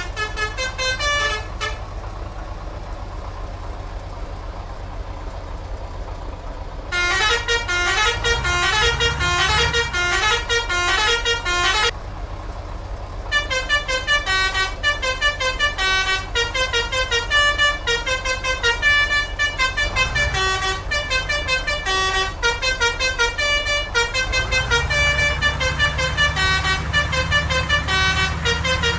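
Telolet multi-tone bus horn playing quick, tune-like runs of notes. It sounds briefly at the start, pauses for about five seconds, then plays again from about seven seconds in and almost without a break through the second half. Under it a bus engine runs with a low rumble that swells twice.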